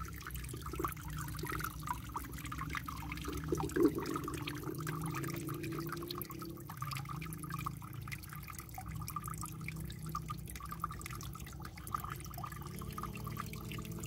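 Water trickling and dripping steadily from a small mountain spring between rocks, running onto a folded leaf held in its flow. One brief louder bump about four seconds in.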